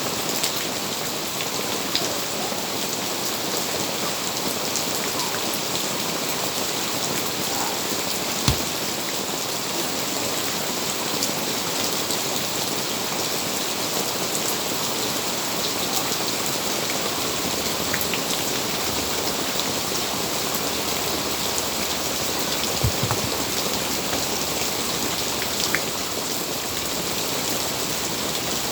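Steady rain falling on a surface, with a few sharper drip taps about a third of the way in and again later.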